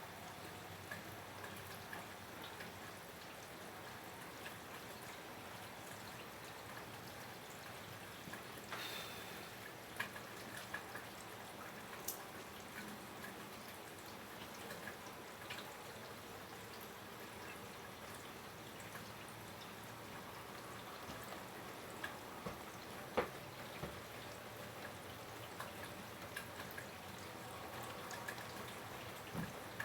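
Steady rain falling, with scattered drips and a few sharper ticks and taps through it.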